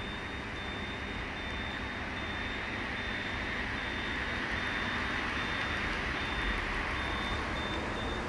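Road traffic, with a passing vehicle swelling in the middle, and a steady high-pitched tone that breaks off briefly at regular intervals.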